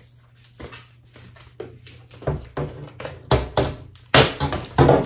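Thin clear protective plastic film being peeled off a hard plastic laptop case shell and handled, crinkling in a run of sharp crackles from about two seconds in, loudest near the end.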